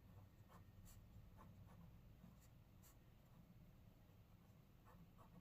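Faint scratching of a pen writing on paper, in short scattered strokes, over a low steady hum.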